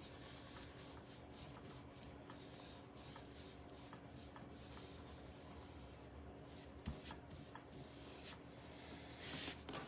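Faint paintbrush strokes scrubbing paint onto a surface, about three short strokes a second, with one light knock about two-thirds of the way through.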